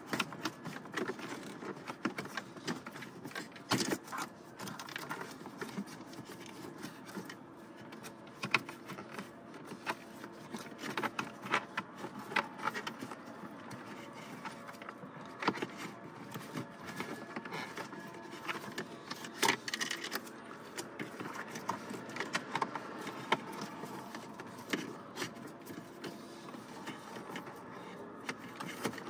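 Handling noise of a wiring harness and cable being fed down through the dashboard's plastic cavity: irregular rustles, light clicks and taps of connectors and cable against plastic trim.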